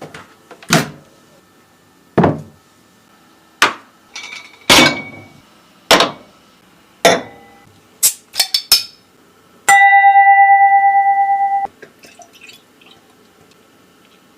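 Kitchen clatter: about ten separate clinks and knocks of dishes and utensils, with a quick cluster of three near the middle. Then a steady electronic beep lasting about two seconds.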